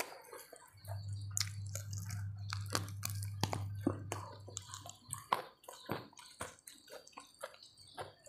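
A person chewing a mouthful of food with the lips closed: many small wet clicks and smacks from the mouth. A low hum sounds under it for the first few seconds.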